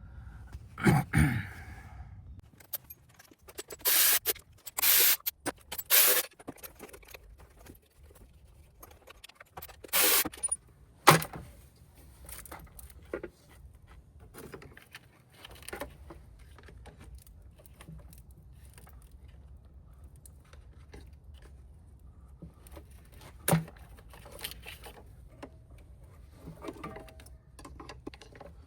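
Metal hand tools clinking and scraping as a socket wrench works a lower intake-manifold bolt in the engine bay. There are a few sharp clanks and several short loud bursts of clatter, with faint ticks between them.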